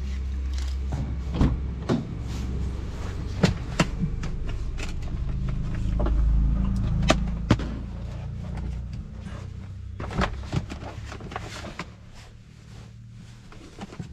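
Scattered knocks and clicks of a car door and interior compartments being opened and rummaged through, over a low steady rumble that fades in the last couple of seconds.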